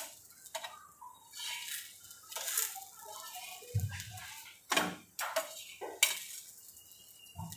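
A metal spatula scraping and clinking against a frying pan and a steel bowl while besan pudla is cooked, in a series of separate scrapes and clicks. There is a dull knock about 4 seconds in.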